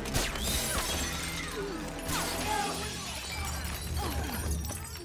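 Gunshots and shattering glass from a movie soundtrack: two sharp bangs about two seconds apart, each followed by breaking glass, over tense orchestral film music.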